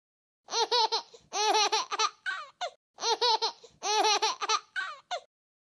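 High-pitched laughter in quick 'ha-ha' pulses, the same burst of about two seconds heard twice in a row with dead silence around it, as if edited in as a laugh effect.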